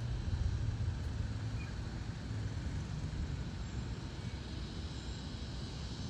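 Steady low outdoor rumble with a faint hiss above it. No distinct bird calls stand out.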